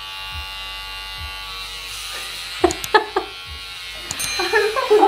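A Wahl electric hair clipper buzzing steadily as it cuts a child's short hair. Short bursts of a child's voice come about halfway through and again near the end.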